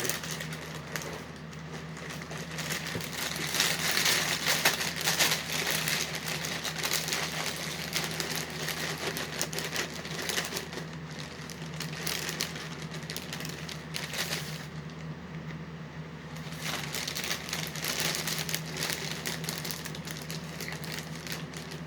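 Dry sugar cookie cereal being chewed close to the microphone: a continuous run of crackly crunches.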